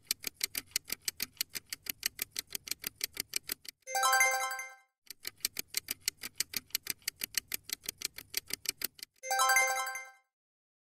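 Quiz-timer sound effect: rapid, even clock-like ticking, several ticks a second, ending in a bright chime that marks time up. The cycle happens twice, with the second chime near the end.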